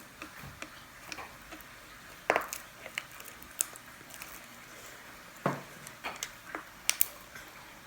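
Homemade glue slime being worked in a pot: scattered wet squishes and light clicks and taps against the container, the loudest about two and a half and five and a half seconds in.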